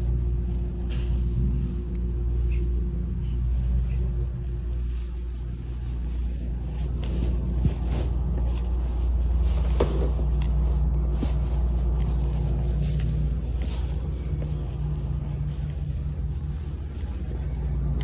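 A steady low rumble, with a few faint clicks and knocks around the middle.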